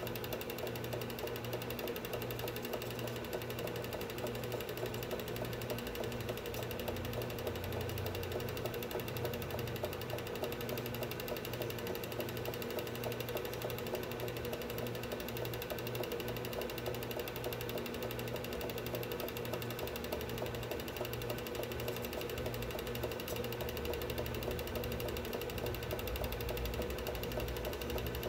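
Film projector running, its mechanism making a steady, fast clatter as the film advances.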